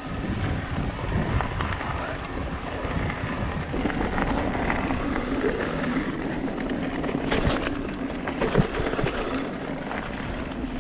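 Electric mountain bike riding down a dirt trail: tyres rolling over gravel and dirt with wind rushing on the microphone, and a few sharp knocks and rattles from the bike about seven and a half and eight and a half seconds in.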